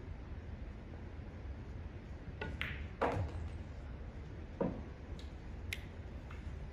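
Pool shot: the cue tip striking the cue ball and the balls clacking together, with the loudest knock about three seconds in, another about a second and a half later, then a few lighter clicks.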